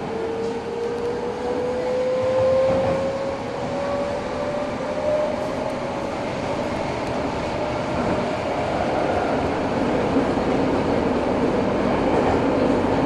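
Interior running sound of an Eidan 03 series subway train on the Hibiya Line. The VVVF traction motor whine rises steadily in pitch for the first five seconds or so as the train accelerates, over steady wheel and rail noise.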